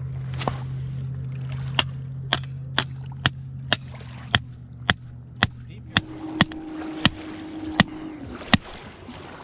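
A rock repeatedly striking the top of a short pipe used as a rod holder, driving it into gravelly ground: about fourteen sharp knocks, roughly two a second. A steady low hum runs under the first six seconds.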